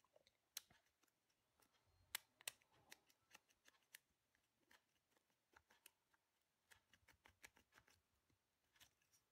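Thin screwdriver tip scraping and picking at a brass contact inside the plastic housing of a Daewoo Nexia light stalk switch, cleaning away plastic that has melted around the high/low-beam contact. It makes faint, irregular clicks and scrapes, a few of them sharper, about two seconds in and near the end.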